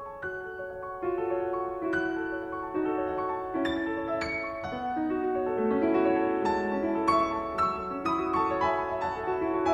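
Background piano music: single notes and chords struck at an unhurried pace, growing fuller and louder in the second half.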